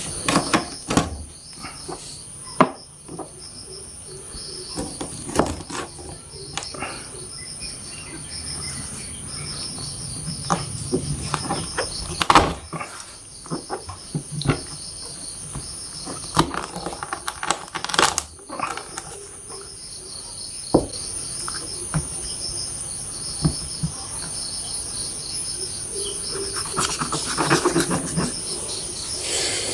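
Knife cutting raw chicken into curry pieces on a cutting board: irregular knocks and chops of the blade on the board, a few much louder than the rest. Crickets chirp steadily throughout.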